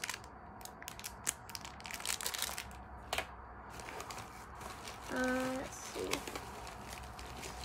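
Plastic packaging crinkling and rustling as it is handled and rummaged through, with irregular crackles. A brief hummed voice sound comes about five seconds in.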